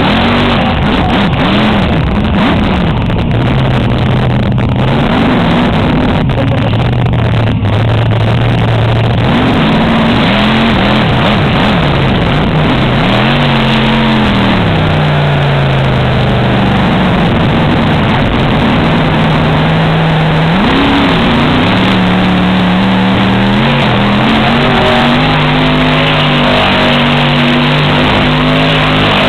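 Monster truck engine running loud, revving up and easing off repeatedly as the truck drives the dirt course, its pitch rising and falling several times.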